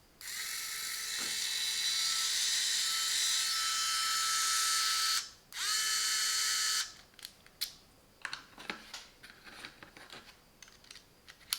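Small battery motor of a Parkside electric precision screwdriver running unloaded with a steady whine for about five seconds, stopping, then running again for about a second. It is followed by a series of light clicks and taps.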